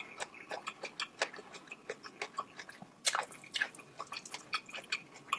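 Close-miked eating sounds: wet chewing and biting of sauce-covered shelled seafood, a quick run of short sticky clicks and smacks.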